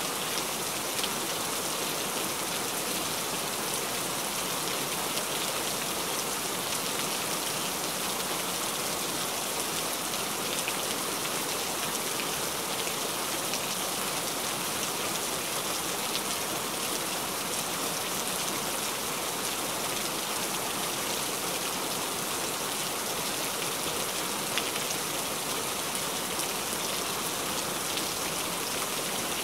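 Steady rain falling, an even hiss of many drops with small ticks scattered through it.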